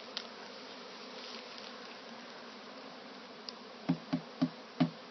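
A honey bee swarm buzzing steadily, the agitated hum of bees that have been shaken into a box. About four seconds in come four quick low thumps in a row.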